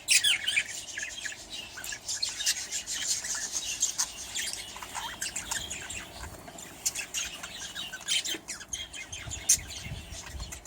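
A flock of budgerigars chattering, with many short, high chirps overlapping throughout.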